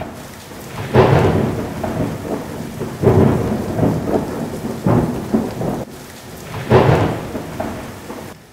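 Thunderstorm: steady heavy rain with four rolls of thunder, each starting sharply and dying away over a second or two.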